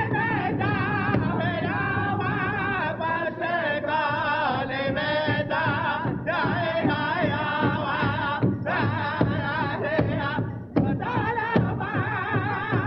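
Music: a singing voice with a strong wavering vibrato over a steady drum beat.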